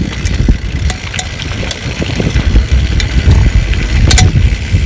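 Wind rumbling hard on the microphone of a mountain bike riding downhill, with scattered sharp clicks and knocks from the bike.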